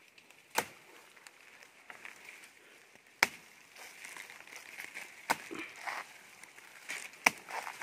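Blade chopping into a tree trunk: four sharp strikes about two seconds apart, as a tree is felled.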